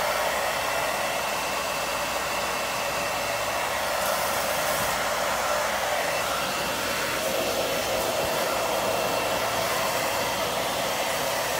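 Handheld hair dryer running steadily, a continuous rushing hiss of blown air.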